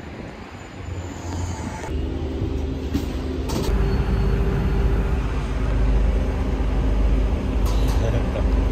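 Double-decker bus heard from inside: a steady low engine hum and road rumble that starts about two seconds in and grows louder, with a couple of brief knocks. Before it there is quieter outdoor street sound.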